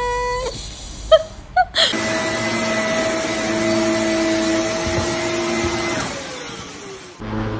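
Vacuum cleaner motor running with a steady whine, its pitch sliding down near the end as it winds down. Before it starts, a drawn-out whine ends just after the beginning, followed by a few short high squeaks.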